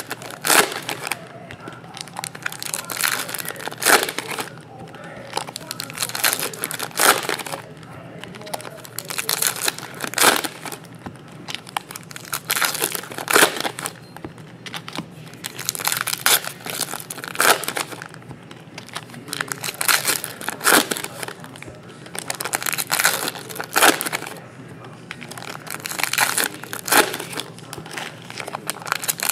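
Foil trading-card packs being torn open and crinkled by hand, with repeated short crinkling rustles a second or two apart as the wrappers are handled and cards are pulled out.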